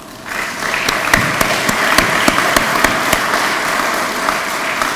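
Audience applauding, building up over the first second and starting to fade near the end.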